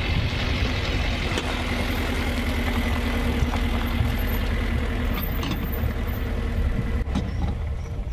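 A 1974 Alfa Romeo classic car's engine running steadily under way, with road and wind noise.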